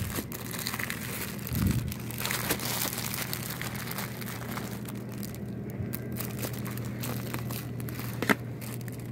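Plastic-wrapped packs crinkling as they are handled and pulled from a store shelf. There is a low bump about one and a half seconds in and a sharp click near the end, over a steady low hum.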